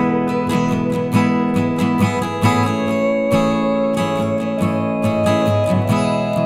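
Background music: acoustic guitar strummed steadily.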